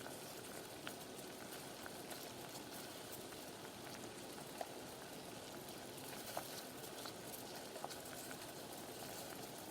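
Covered pot of tea boiling on the stove: a faint, steady bubbling hiss with a few small ticks scattered through it.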